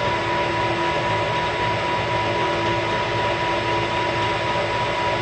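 Metal lathe running steadily, a constant machine hum with a steady high tone through it.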